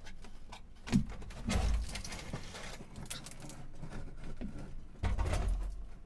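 Old RV three-way refrigerator being pulled out of its wooden cabinet: its metal body knocks and scrapes against the cabinet, with a sharp knock about a second in and dull thumps as it shifts.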